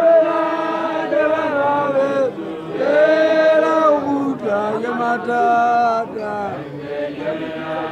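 Men chanting a Basotho initiation song in long held phrases, with short breaks between them and weaker singing near the end.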